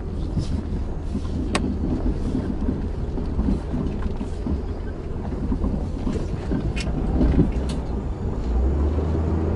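Jeep engine running in a steady low rumble, growing stronger near the end, with a few sharp clicks and knocks.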